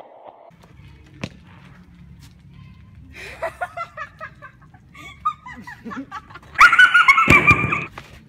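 Young men's voices and laughter over a steady low rumble, with one sharp click early. About six and a half seconds in comes a loud, high-pitched vocal outburst lasting about a second and a half.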